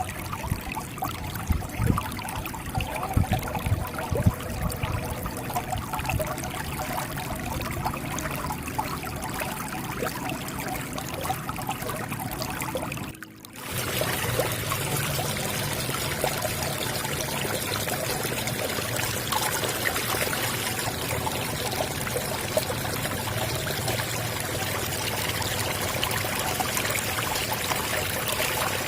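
Flowing water trickling and splashing, with small low plops. About halfway through it dips briefly and then comes back as a fuller, hissier, even rush of water.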